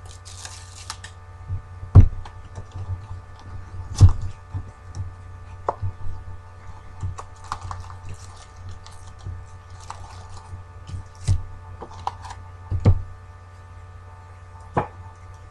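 Trading card box and packs being handled and opened on a table: several sharp thuds and knocks, the loudest about two and four seconds in, with short bursts of crinkling and tearing of pack wrappers, over a steady electrical hum.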